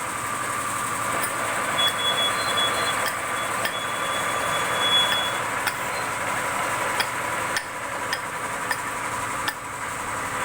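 Plasma cutter arc hissing steadily as it cuts a pipe turned in a lathe, with a steady whine, a higher tone that comes and goes, and scattered faint ticks.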